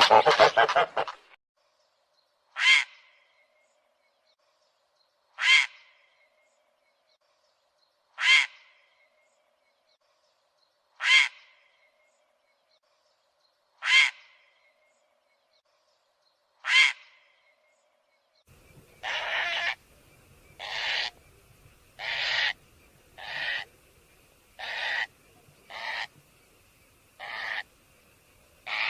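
Recorded bird calls played as a hunting lure: a short, harsh call repeated six times, about once every three seconds, then from about two-thirds of the way in a different series of longer calls, roughly one every second and a half, over a faint hiss.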